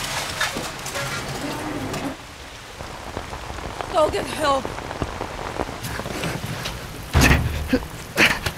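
Heavy rain pouring down, with two heavy thumps about a second apart near the end.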